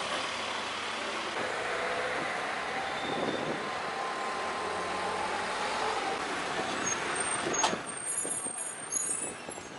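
Steady noise of road vehicles, with faint whining tones in the first half and a sharp click about three-quarters of the way through.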